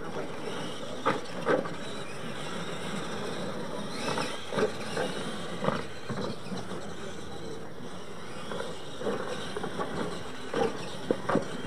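RC monster trucks racing on a dirt track, their electric motors and drivetrains running steadily, with several short louder sounds scattered through.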